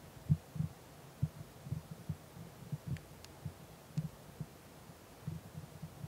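Irregular low, dull thumps, several a second, with two faint clicks about halfway through.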